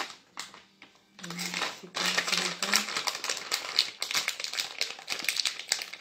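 Plastic crinkling and rustling in quick, dense clicks as hands work cold porcelain clay, starting about a second in.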